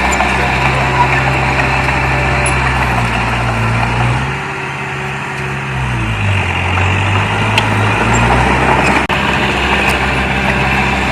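Heavy diesel engine of earthmoving machinery running steadily, easing off in loudness and pitch about halfway through, then picking back up.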